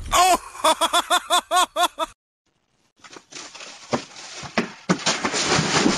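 A fast string of about ten short pitched cries, each rising and falling, lasting about two seconds. After a brief silence comes a noisy scuffle with several sharp knocks as a man falls onto a porch.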